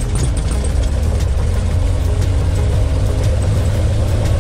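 Cessna 182R's six-cylinder Continental O-470 piston engine idling steadily right after start-up, heard from inside the cabin.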